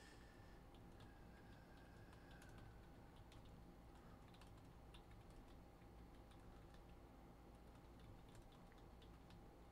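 Near silence with faint, irregular clicks of typing on a computer keyboard, over a faint steady electrical hum.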